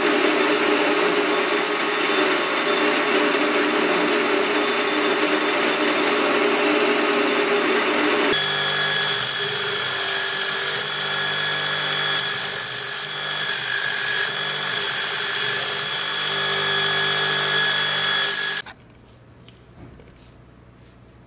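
Hand-held power tools grinding the steel of a knife tang. First comes a steady grinding noise. About eight seconds in it changes to a different tool with a steady whine and a higher hiss that comes and goes. It cuts off abruptly near the end, leaving only faint clicks.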